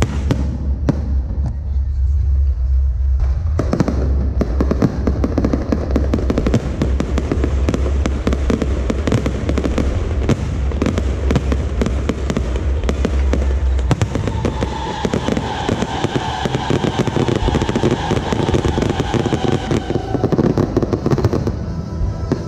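Firecrackers going off in a dense, rapid crackle that starts about four seconds in and continues throughout. A steady low hum runs underneath until about two-thirds of the way through, and a pitched tone sliding slightly downward sounds over the crackle near the end.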